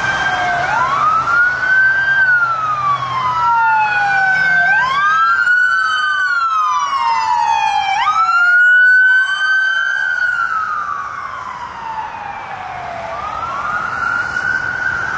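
Sirens of a passing police motorcade escort wailing, several overlapping. Each sweep rises quickly and falls away slowly. They are loudest about eight or nine seconds in.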